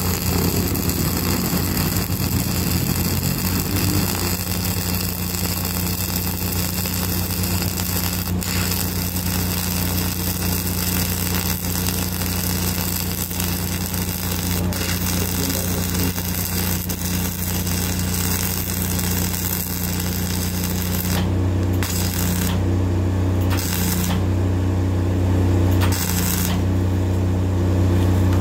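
Self-shielded flux-core arc welding with NR-233 wire: the arc crackles and sizzles steadily over a steady low machine hum. In the last seven seconds or so the arc cuts out and restrikes a few times before stopping, leaving only the hum.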